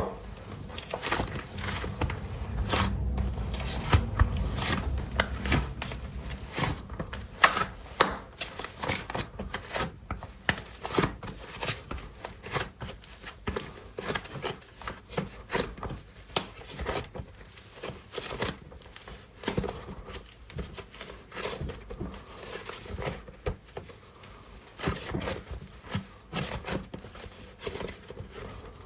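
Air-dry clay being handled up close: a dense, irregular run of short crackles, crinkles and sticky tearing sounds, with some low rumbling in the first few seconds.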